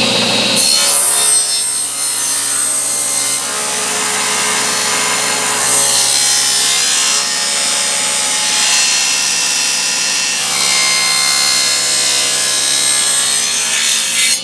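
Table saw running and ripping a thin strip off a wooden board, with the blade cutting steadily through the wood. The cut starts about half a second in.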